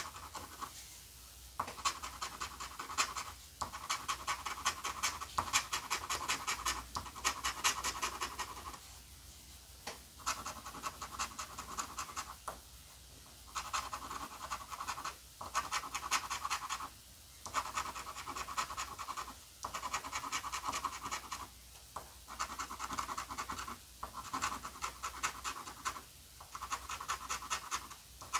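A coin scratching the latex coating off a scratch-off lottery ticket in quick back-and-forth strokes, coming in runs of a second or two broken by short pauses.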